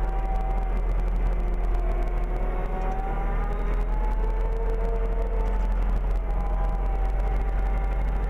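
CLAAS tractor engine running as the tractor drives along, a steady low drone whose pitch drifts slowly up and down.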